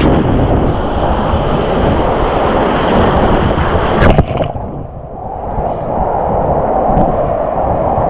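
Surf from a stormy sea mixed with wind buffeting the microphone, a loud, dense rushing noise. About four seconds in there is a sharp knock, after which the noise turns duller and quieter.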